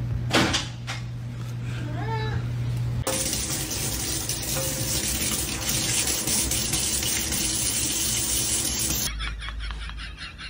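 A few sharp knocks, then water from a kitchen faucet running steadily into a stainless-steel sink for about six seconds, cutting off suddenly near the end.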